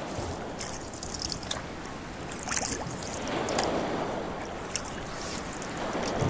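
Sea waves washing and swelling around a rowboat, with short water splashes every second or so.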